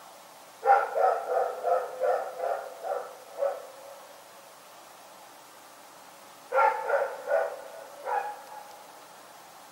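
A dog barking in two bouts: about eight quick barks in a row, then, after a pause of about three seconds, four more.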